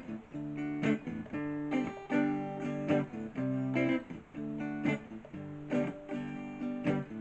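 Red single-cutaway electric guitar with a Bigsby vibrato, played clean and solo: a repeating chord riff in a bluesy rhythm, with a sharp strum about once a second.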